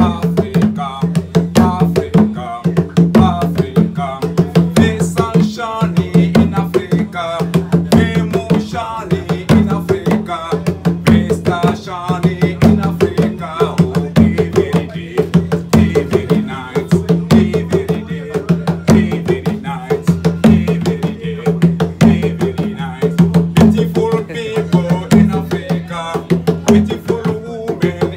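Two Ghanaian kpanlogo hand drums played with bare hands in a fast, steady interlocking rhythm, with a man singing over the drumming.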